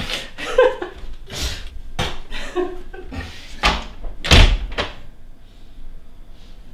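An interior door being handled and shut: a run of knocks and bumps, the loudest thud about four and a half seconds in as the door closes.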